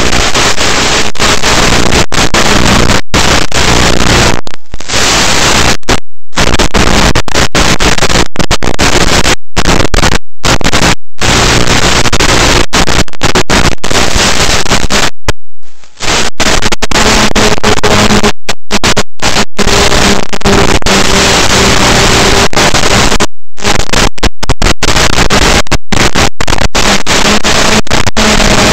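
Loud static hiss from an analog FPV video link's audio channel, chopped by many abrupt short dropouts, with a faint steady hum underneath.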